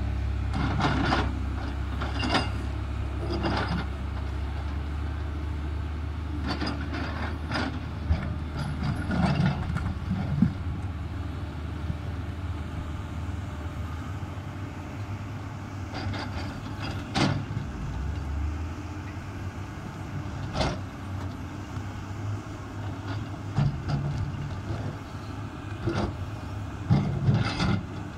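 Komatsu PC300 hydraulic excavator's diesel engine running with a steady low drone while its steel bucket strikes and scrapes quartzite boulders, giving sharp knocks and clanks every few seconds, several in quick succession near the end.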